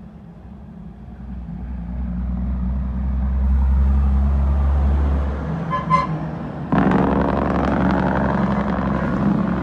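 Diesel engine of a dump truck approaching, a deep drone that grows steadily louder over the first few seconds, with a short horn toot about six seconds in. Near seven seconds it gives way suddenly to a louder, closer heavy-truck engine as a tractor-trailer tanker passes.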